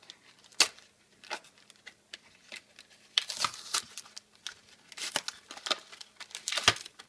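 Foil Pokémon booster pack wrapper crinkling and tearing as it is pulled open by hand, in uneven spells of rustling and crackling with a sharp crackle just over half a second in.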